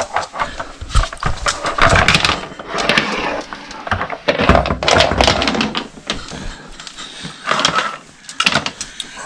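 Household objects being moved and handled: a run of irregular knocks and clatters with rustling between them.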